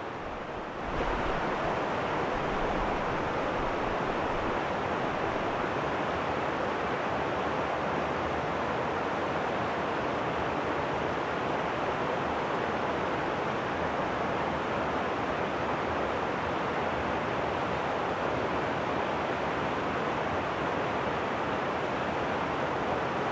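Stream water rushing over a low rocky ledge in a small cascade: a steady, even rush that steps up in loudness about a second in.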